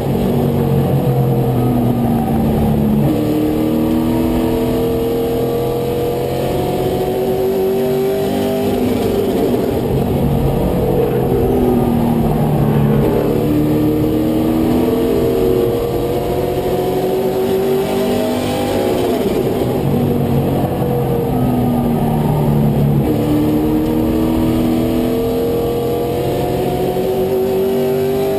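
Race truck's engine heard from inside the cab at racing speed, its pitch climbing under throttle and then dropping, over and over, as the driver accelerates down the straights and lifts for the turns.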